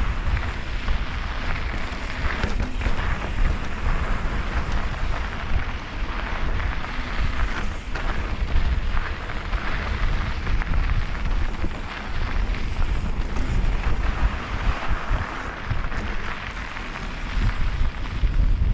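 Mountain bike rolling fast down a dry dirt and gravel singletrack: wind buffeting the microphone over a steady crunch and patter of knobby tyres on loose dirt, with irregular small rattles and knocks as the bike goes over bumps and rocks.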